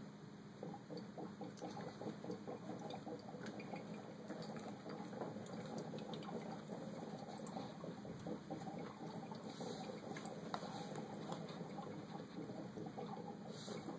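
Water boiling in a corked glass beaker over a Bunsen burner: a dense, continuous bubbling and popping that starts about half a second in, over a steady low hum.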